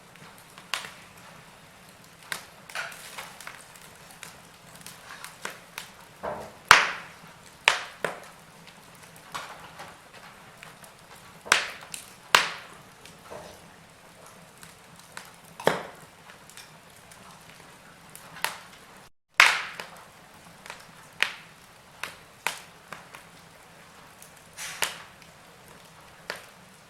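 Wood fire crackling, with irregular sharp pops and snaps of burning logs over a faint hiss; the sound cuts out for a split second about two-thirds of the way through.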